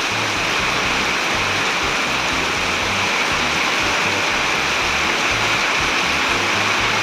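Heavy tropical-storm rain pouring down in a steady hiss.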